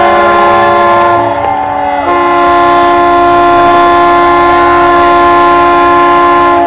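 Several horns sounding together in long held blasts, forming a loud chord of steady tones. One horn drops out a little over a second in and comes back about a second later.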